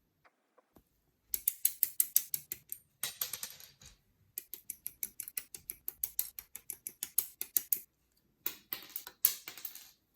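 Plastic model kit parts being handled: rapid runs of small clicks and taps, several a second, broken by brief pauses, with a short rustle about three seconds in.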